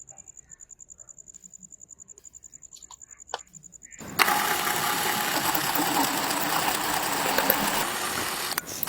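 Faint ticking, then about four seconds in a loud motor starts abruptly and runs steadily, with a brief dip near the end.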